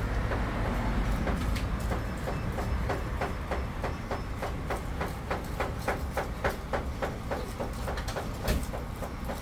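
Rapid, even knocking, about four or five sharp strokes a second, over a steady low rumble.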